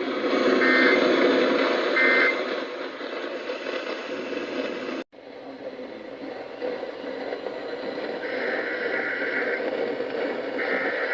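Emergency Alert System digital data bursts (SAME code) heard over a radio broadcast with a steady hiss: two short bursts near the start that close the alert, a sudden dropout about five seconds in, then two longer bursts about eight and ten and a half seconds in that open the next alert.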